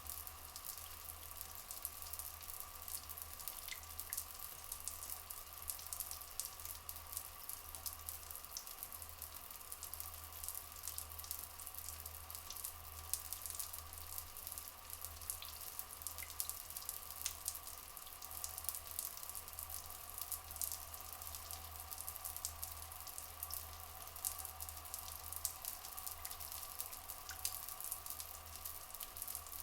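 Rainforest ambience: a dense, even patter of water dripping and trickling, over a steady high drone. A few short, faint bird chirps come through.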